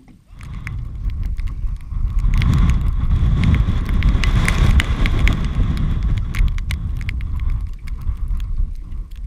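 Strong wind buffeting the microphone in a snow squall, a loud low rumble, with many sharp ticks scattered through it.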